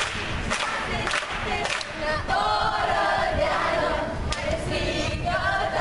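A group of children and young people singing and shouting together, with hand claps keeping a beat about twice a second for the first couple of seconds.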